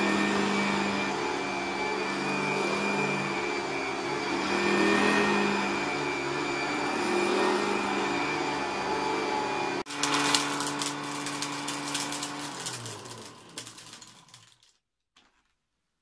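Vintage 1972 Hotpoint Light 'n' Easy upright vacuum cleaner running steadily as it is pushed over carpet. Shortly before ten seconds in it cuts out briefly, clatters for a moment, then its motor winds down with falling pitch and goes quiet about fifteen seconds in.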